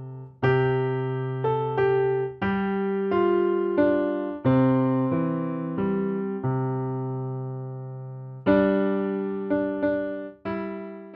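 Keyboard with a piano sound playing a simple beginner piece: a melody over bass notes and chords, each struck and left to fade, with one longer held note in the middle.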